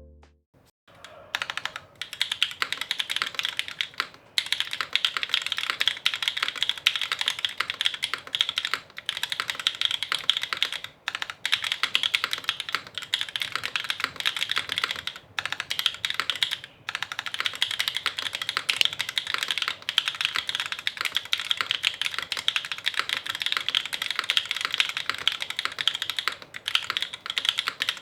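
Typing test on a TGR Shi mechanical keyboard: an aluminium plate, top-mounted, with no foam, vintage MX Black linear switches on 60 g springs and GMK keycaps. The typing is fast and continuous, with a string of clacks starting about a second in and a few brief pauses.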